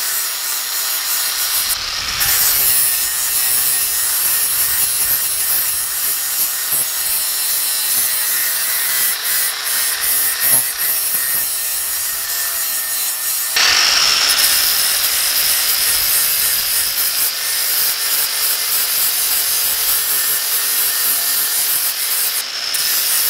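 Angle grinder with a 60-grit flap disc sanding the steel face of a sledgehammer head: a continuous whine and rasping grind, taking out scratches before polishing. The pitch dips briefly about two seconds in, and about 13 seconds in the sound suddenly gets louder and brighter.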